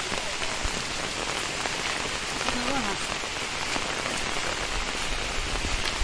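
Steady rain falling on dense forest foliage and a wet road, an even hiss with no break.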